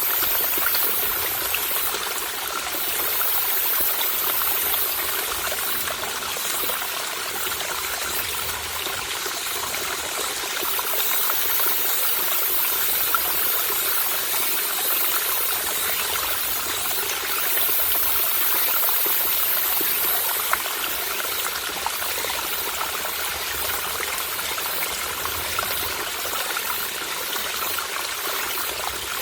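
Mountain stream trickling steadily over rocks, with cicadas' very high buzz coming and going in stretches of a few seconds.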